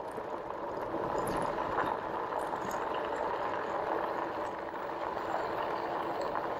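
Steady rolling noise of a 2018 RadRover electric fat-tyre bike riding over a gravel path at about 20 mph.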